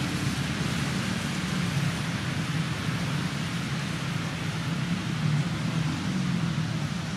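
Steady background noise: an even hiss with a low hum beneath it, unchanging throughout.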